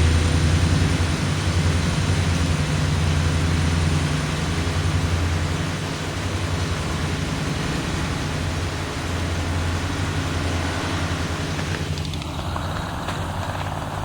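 Indian Railways WDG4 diesel-electric locomotives, with EMD 16-cylinder two-stroke 710 engines, working hard to haul and bank a heavy train up a steep grade. A steady deep engine drone with a thin high whine above it, easing a little about six seconds in.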